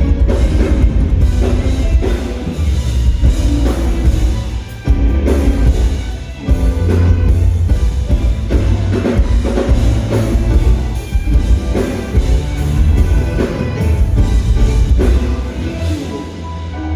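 Band music with a drum kit and heavy bass, with regular drum strikes and no words.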